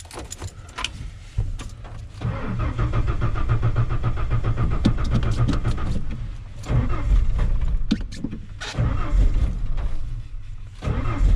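1992 Ford F-150's inline-six being cranked by the starter motor: one long crank of about four seconds, then two or three shorter tries, turning over without catching. The engine cranks but will not start.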